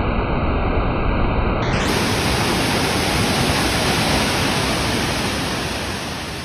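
Steady rush of a waterfall cascading over boulders, turning brighter and hissier about two seconds in and fading slightly near the end.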